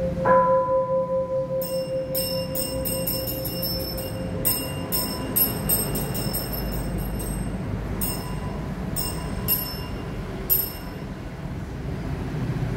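Large bronze bowl bell struck once just after the start, its deep ring with a slow beat fading over several seconds. Then a small hand bell is rung in quick, uneven strokes of a bright, high ring, slowing and stopping about eleven seconds in.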